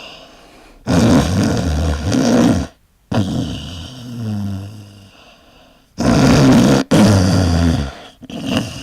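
Loud snoring: a run of rough snores, each one to two seconds long, with short gaps for breath between them; the one in the middle is softer, with a low drone.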